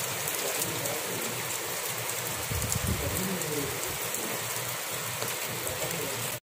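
Rain falling steadily on a wet, flat concrete rooftop, an even hiss of drops hitting the surface, with a brief low rumble about halfway through. It cuts off abruptly near the end.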